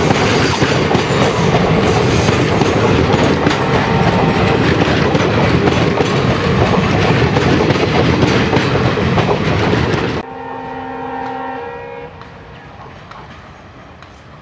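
Passenger coaches rolling past close by: a loud, steady rumble and clatter of wheels on the rails, which cuts off suddenly about ten seconds in. A train horn then sounds one steady note for about two seconds, and the receding train's rumble fades.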